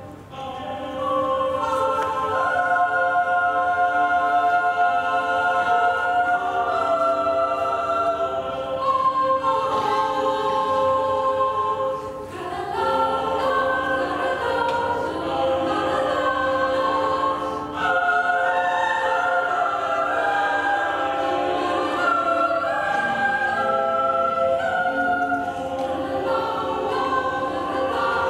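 A recording of a mixed chamber choir singing, played over the room's speakers: several voice parts hold overlapping sustained notes that shift from one chord to the next over a steady held note. It begins about a second in, after a short pause.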